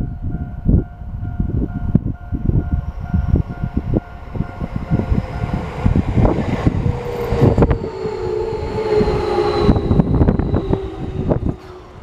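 A Keio Line electric train approaches a level crossing, its rumble growing louder through the middle, with a held tone from the train in the second half. A level-crossing alarm rings in a steady repeating pattern early on, and wind buffets the microphone with frequent low thumps.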